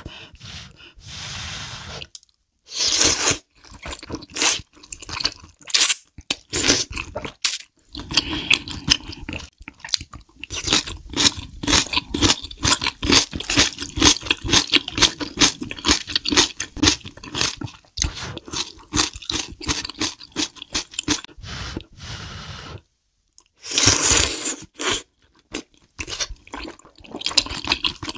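A person eating thick noodles: rapid wet chewing and smacking, with longer slurps of noodles about three seconds in and again near the end.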